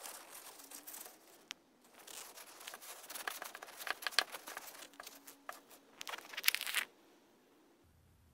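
Paper towel crinkling and rustling in uneven handfuls as a wet metal lighter is rubbed dry in it. It is loudest about six and a half seconds in and stops about seven seconds in.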